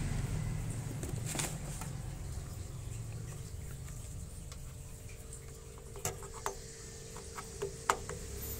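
Cables being handled, with scattered plastic clicks and knocks. The loudest, a sharp click just before the end, comes as a power cord plug is pushed into the karaoke mixer's power inlet.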